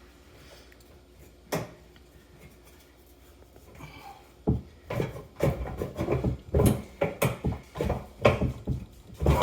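Tin snips working at sheet metal by hand: one sharp click about a second and a half in, then from about halfway an irregular run of sharp clicks and knocks, several a second.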